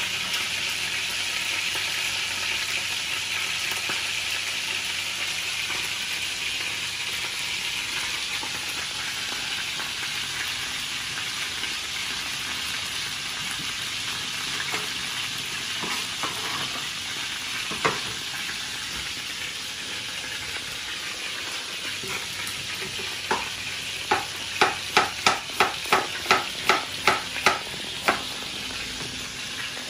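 Conger eel steaks sizzling steadily as they fry in a pan. Near the end, a quick run of about eleven knife chops on a plastic cutting board, roughly three a second, with a couple of single knocks before them.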